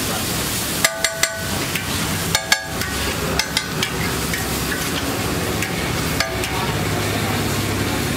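Metal spatula blade striking and scraping a large flat iron griddle as scrambled egg is chopped, with sharp ringing clanks clustered in the first half and one more near the end, over a steady sizzle of frying.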